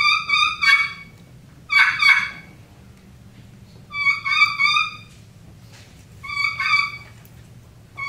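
Friction turkey call worked by hand as a kee-kee run, the whistling call of a young turkey. It sounds as short clusters of two to four whistled notes, the clusters coming about every two seconds.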